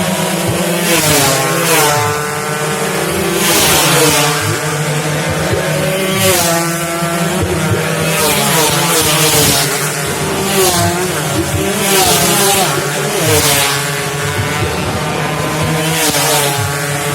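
Several two-stroke 116 cc underbone race motorcycles at full throttle. Their engines climb in pitch and drop back again and again through the gear changes as they pass, with more than one engine heard at once.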